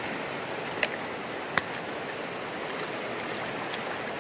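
Virgin River water flowing and splashing steadily around wading legs, with two sharp clicks about a second in.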